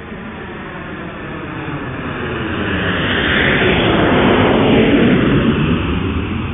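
Jet airliner flyby: a rushing noise that swells, passes overhead about four to five seconds in with a falling pitch, then begins to fade.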